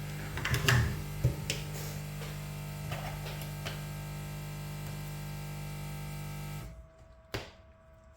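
Steady electric hum of a blower-type tool drying cleaning alcohol off a circuit board. It cuts off suddenly about seven seconds in. Light clicks and taps of handling fall over it.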